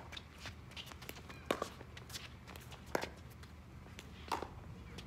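Pickleball paddles striking a plastic pickleball in a rally: three sharp pops, about a second and a half apart.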